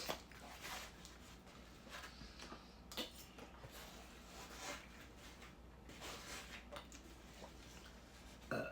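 Faint, scattered clicks and taps of small handling at a dining table, over a low room hum.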